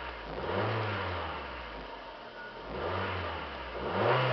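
2002 Mazda Protegé5's 16-valve overhead-cam four-cylinder engine, stationary, revved up from idle and let fall back three times, the last rev the loudest, near the end. Heard from inside the cabin.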